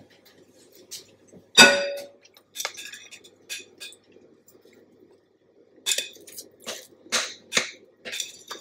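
Metal offset spatula against a glass mixing bowl: one sharp, ringing clink about one and a half seconds in, then a run of short scrapes and taps as thick chocolate frosting is scraped out of the bowl.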